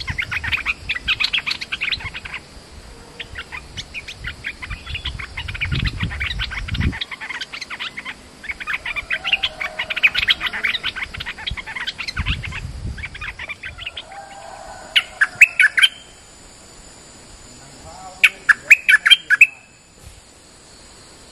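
Stripe-throated bulbul calling as a caged decoy bird: bouts of rapid bubbling chirps, then two short bursts of louder, sharper calls near the end.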